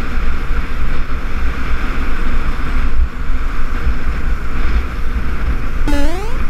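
Wind buffeting a moving camera's microphone, with a steady road hiss. Near the end, a short rising electronic chime, a game-style scoring sound as another passed car is counted.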